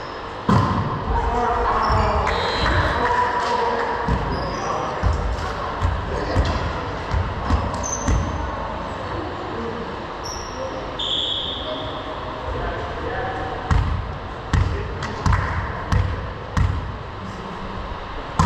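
Volleyball bouncing and being struck on a hardwood gym floor, with short sneaker squeaks and players' voices echoing in a large hall. Late on, a run of about five bounces roughly two-thirds of a second apart, a server bouncing the ball before serving.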